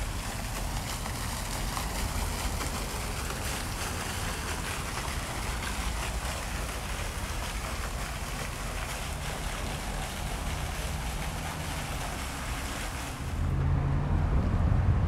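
Wind buffeting the microphone over a steady low rumble of outdoor noise; near the end the hiss drops away and the rumble gets louder.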